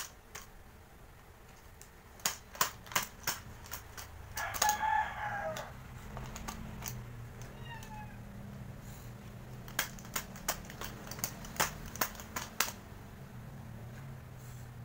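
Irregular sharp clicks and taps of a small plastic-packaged thermometer being handled and knocked about by a baby. A rooster crows once about four and a half seconds in, and a low steady hum sets in from about six seconds.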